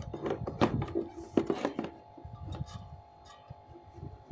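Hands handling plastic electrical fittings, a plug and mains socket, on a tabletop: a run of sharp knocks and clinks in the first two seconds, then a few softer taps. A steady faint hum of several tones sits underneath.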